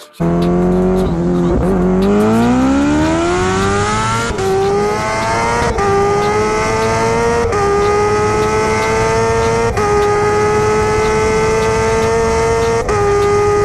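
A high-revving engine at full throttle, accelerating hard through the gears: its pitch climbs steadily, with a brief break at each of about five upshifts.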